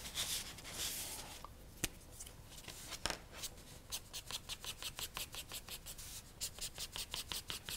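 Felt-tip marker drawing quick short strokes on paper, a faint run of light scratches about three or four a second, as short fur lines are sketched in.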